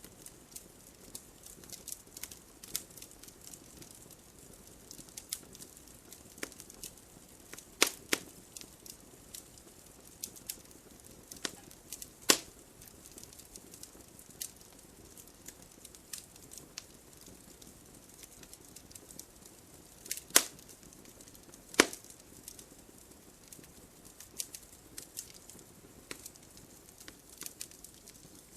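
Campfire of burning wood crackling: a steady low hiss with scattered sharp pops and snaps at irregular intervals, the loudest around 8, 12, 20 and 22 seconds in.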